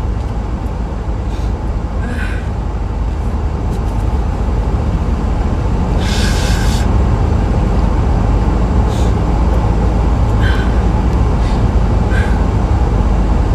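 Steady low rumble of a moving vehicle, heard from inside it. Several short breathy noises sound over it, the longest about six seconds in.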